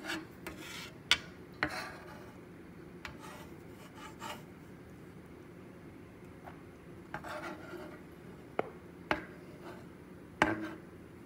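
A metal fish spatula scraping and pressing boiled egg across a wooden cutting board, mashing it, with a few sharp taps of the spatula on the board.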